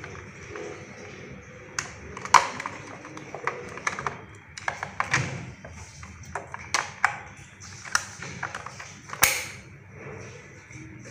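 Irregular clicks and taps of hard plastic being handled: a battery pack being seated in the underside compartment of a toy RC excavator and its plastic cover fitted back on, with a small screwdriver at the cover screw. The sharpest tap comes a little over two seconds in.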